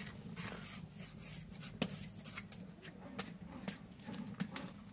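A knife blade scraping the burnt hair and skin off a singed goat head, in irregular short rasping strokes with sharp clicks.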